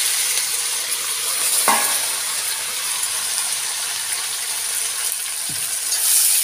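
Pieces of pigeon meat, freshly added to hot oil with fried onion and ground masala in a kadhai, sizzling loudly and steadily while being stirred with a ladle. A single metal clink about a second and a half in.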